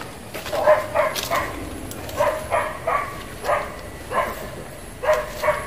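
A dog barking repeatedly, about a dozen short barks, some coming in quick runs of two to four.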